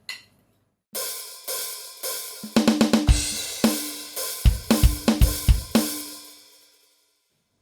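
Yamaha DTX700K electronic drum kit played in a short fill. Cymbal and snare hits come from about a second in, followed by a run of quick strokes with several deep kick-drum thumps. The last hit rings out and fades away.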